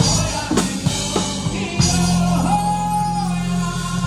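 Live band with a male lead singer: four percussion hits about half a second apart open the passage, then the singer holds a long note that steps up in pitch over a sustained bass note.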